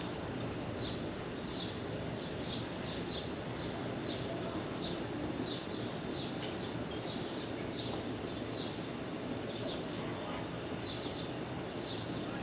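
A bird chirping over and over, short high chirps about twice a second, over a steady background hiss.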